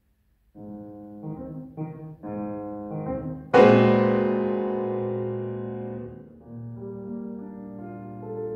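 Piano and woodwind trio playing classical chamber music. After a brief pause, short chords begin; about three and a half seconds in, a loud piano chord is struck and rings away slowly, and soft held wind notes come back in near the end.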